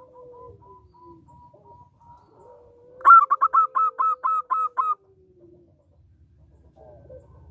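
Zebra dove (perkutut) singing its fast string of about nine clipped cooing notes, about three seconds in, lasting some two seconds. Fainter long, slowly gliding calls run underneath.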